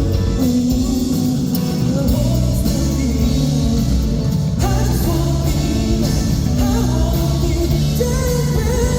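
Live pop-rock band music with guitar, bass and a singing voice over it, loud and continuous.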